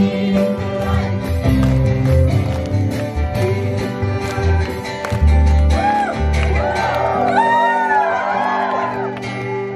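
Live praise band playing a worship song: acoustic guitar, electric bass and a beat, with a young man singing into a microphone. From about six seconds in, several voices join with wavering, sliding calls, and the music starts to fade near the end.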